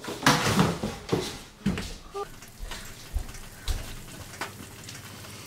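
Handling noise as plates are lifted off a table and people get up: a rustling clatter for about the first second, then several scattered knocks and clunks.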